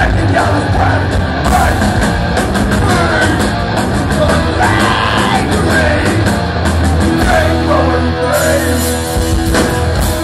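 Thrash metal band playing live: distorted electric guitars, bass and drums, with a man singing over them.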